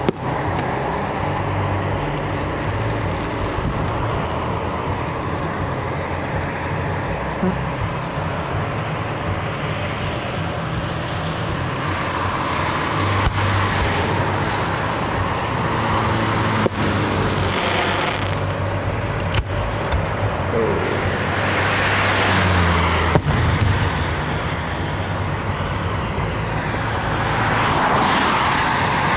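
Road traffic noise: a steady engine and tyre hum, with several vehicles passing in the second half that swell and fade. Four sharp bangs from distant fireworks come a few seconds apart.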